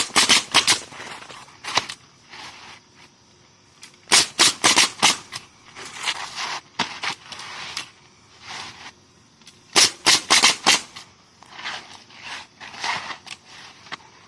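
Roofing nailer driving nails into asphalt shingles: quick bursts of about five shots each, three bursts with pauses between them.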